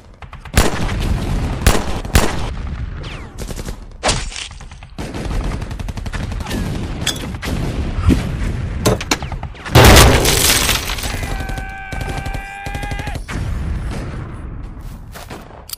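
Battle sound effects: scattered rifle and machine-gun fire with shots throughout. A loud explosion comes about ten seconds in, followed by a steady ringing tone for about two seconds.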